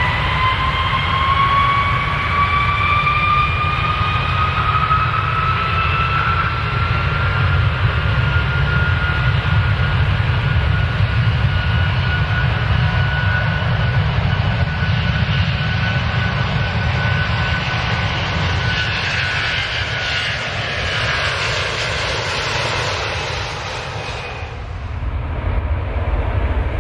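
Airplane jet engines running at high power, with a whine that rises in pitch over the first several seconds and then levels off, over a deep rumble. The sound typical of engines spooling up for take-off. The higher part of the sound drops away suddenly near the end.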